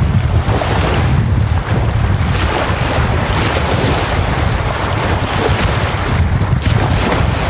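Small wind-driven lake waves breaking and washing up over a sandy shore in repeated swells of hiss, over a steady low wind rumble on the microphone.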